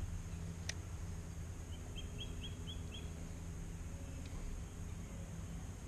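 A bird gives a quick run of about five short, high chirps about two seconds in, over a steady low rumble, with a single sharp click just before.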